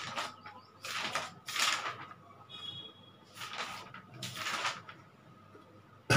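Rustling and handling noises: short rustles about a second apart, then a sharp knock near the end.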